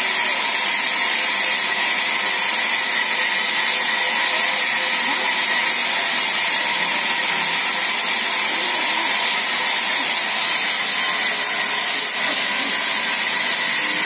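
Large sawmill band saw running steadily: a constant, high-pitched hiss with no pauses.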